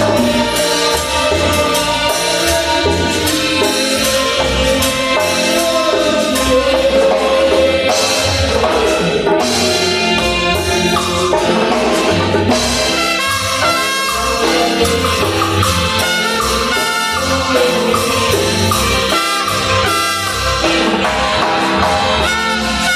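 Latin-style music with brass-like lead lines over a steady bass and rhythm, played on sounds from the Caustic music app.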